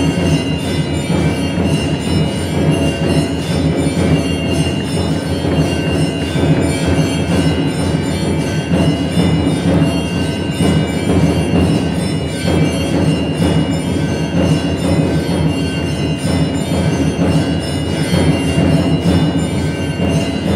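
Background music, steady and unbroken throughout.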